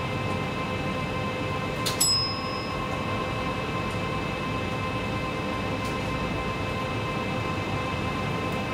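Interior of an ex-Oslo Sporveier SM83 tram moving slowly: a steady rumble with a constant hum of several steady electrical tones. About two seconds in there is a single sharp click with a short high ring.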